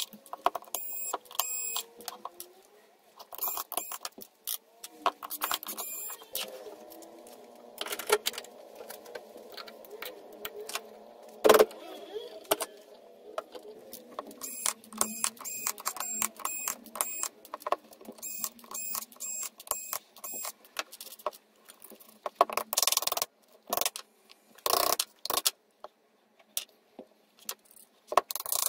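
Bosch cordless screwdriver whirring in short bursts as it backs screws out of an electric scooter hub motor's cover, with screws and metal parts clinking and knocking on a wooden bench. One sharp knock, the loudest sound, comes just before halfway.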